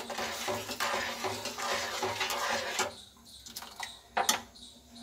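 A spoon stirring and scraping thickening milk custard in a pan for about three seconds as the added sugar dissolves. It gets quieter, then gives one sharp clink against the pan about four seconds in.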